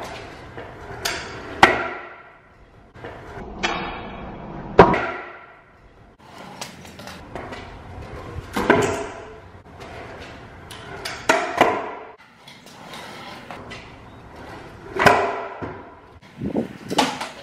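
Freestyle scooter landing tricks on a concrete floor: a series of sharp clacks and bangs with a short metallic ring, coming every one to three seconds, with the wheels rolling on concrete in between.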